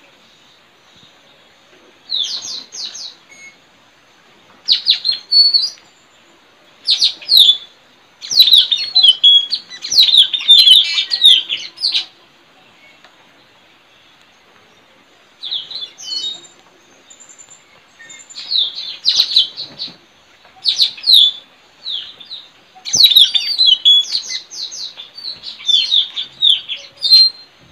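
Blue-rumped parrots (tanau) calling in bouts of sharp, high chirps, each burst a second to a few seconds long, with short quiet gaps between. It is a field recording of the calls used as a lure for wild birds.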